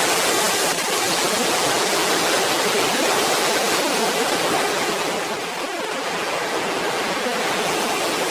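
A steady, even rushing noise with no tone or rhythm.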